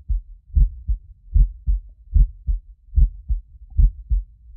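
Heartbeat sound effect: paired low thumps, lub-dub, about one pair every 0.8 seconds, steady and regular.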